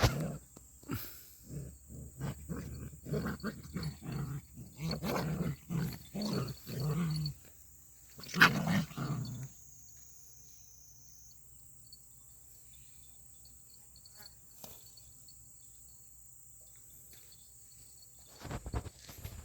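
Dogs growling in rough play: a run of short growls over the first seven seconds, then a louder, longer growl about eight seconds in. After that it goes quiet, with a few knocks near the end.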